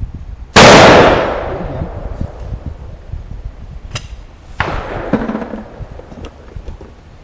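A single shotgun shot, very loud, its report ringing away over about a second. Some three seconds later comes a sharp click, then a fainter bang.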